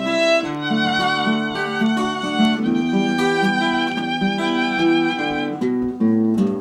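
Violin playing a melody with vibrato over acoustic guitar accompaniment: the instrumental introduction to a song.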